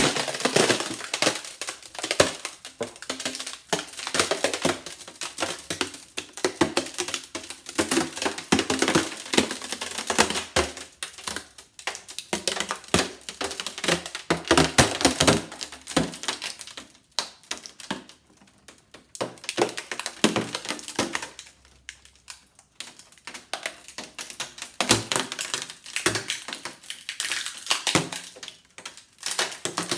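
Balloon peeling away from the inside of a dried, glue-stiffened twine egg after being poked: a dense, irregular run of crackles and snaps as the latex pulls off the hardened string, with brief lulls partway through.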